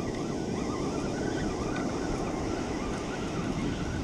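Steady wind noise on the microphone over the wash of breaking surf.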